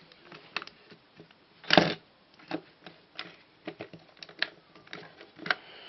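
Plastic Lego pieces of a small brick-built safe being handled, giving irregular clicks and knocks as its drawer is pushed back in and its dials turned, with one louder knock about two seconds in.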